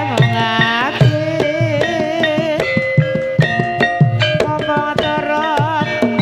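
Live Javanese gamelan music: quick hand-drum strokes from the kendang under struck metallophone notes, with a melody line that wavers in a strong vibrato.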